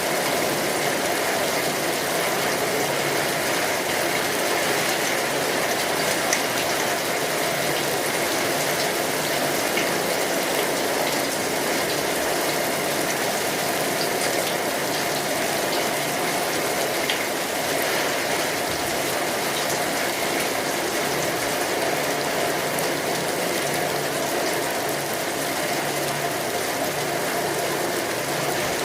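Steady rain, an even patter and hiss with occasional small drops ticking out.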